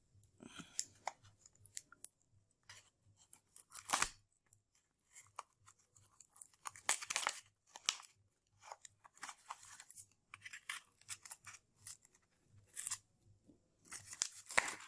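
Packaging of a Crucial laptop RAM module being torn and crinkled open by hand: irregular crackles and ripping sounds, the loudest about four seconds in and again near the end.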